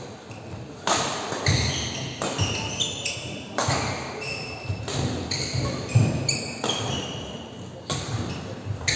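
Badminton rally: sharp racket hits on the shuttlecock every second or so, mixed with short high squeaks of shoes on the court floor and heavy footfalls, echoing in a large hall.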